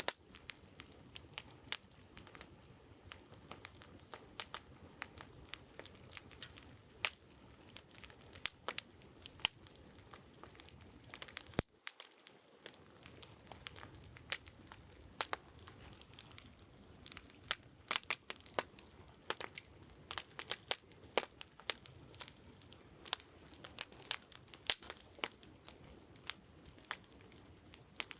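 Wood campfire crackling, with irregular sharp pops and snaps over a faint low background.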